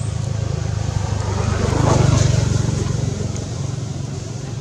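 A passing motor vehicle: a low engine rumble that swells to its loudest about two seconds in, then fades.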